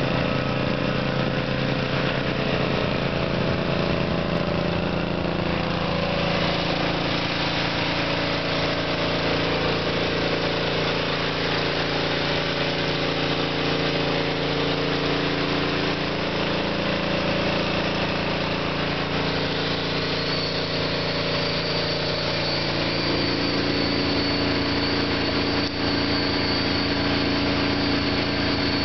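An engine running steadily at idle, its pitch drifting slightly, with a thin high whine that joins it about twenty seconds in.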